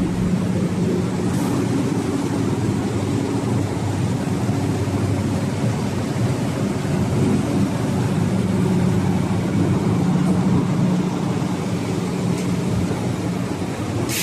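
Machinery of a battery recycling line running: a steady mechanical drone with a low hum that swells and fades.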